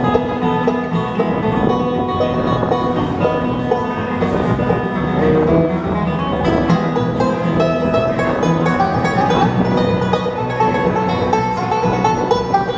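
Live bluegrass band playing an instrumental break between sung verses, plucked string instruments carrying the tune over a steady beat.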